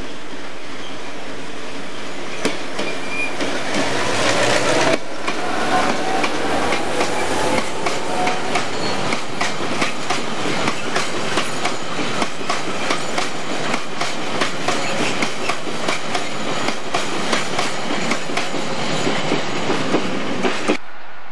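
A diesel-hauled freight train passing close by: the locomotive comes up and past over the first few seconds, then a long rake of loaded box wagons rolls by with a steady clickety-clack of wheels over rail joints, about two clicks a second. The sound cuts off suddenly near the end.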